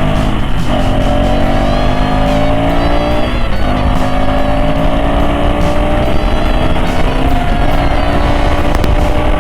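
KTM 390 Adventure's single-cylinder engine accelerating hard through the gears: the revs climb steadily and drop at each of three upshifts, about a second, three and a half seconds and seven and a half seconds in, over wind noise.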